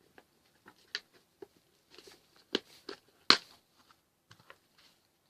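Scattered handling clicks and light knocks of small parts being fetched on a workbench, the loudest a sharp click a little past three seconds in.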